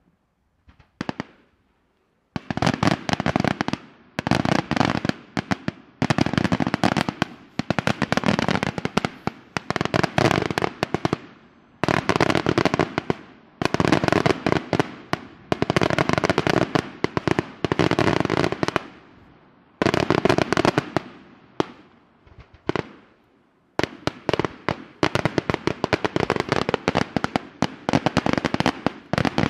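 Daytime aerial fireworks going off in rapid volleys of sharp bangs and crackle. After a couple of isolated pops, the dense bursts start about two seconds in and come in clusters of a second or two with short gaps between.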